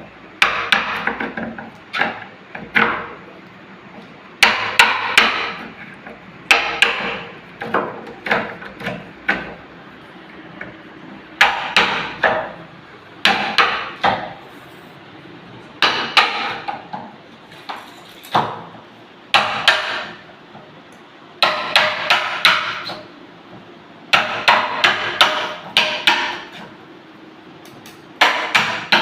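Hammer striking repeatedly in bursts of several quick blows, each blow ringing briefly, with short pauses between bursts.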